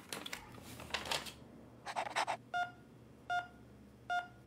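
Three short, identical electronic beeps, evenly spaced about three-quarters of a second apart in the second half, after some rustling and handling noise.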